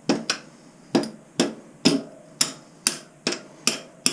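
Wooden mallet striking a metal punch to drive a motorcycle's front through-axle out of the wheel: about ten steady blows, roughly two a second, each with a short metallic ring.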